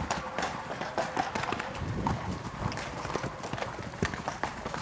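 Hoofbeats of horses galloping on grass, an irregular run of thuds as they take off and land over a wooden rail fence.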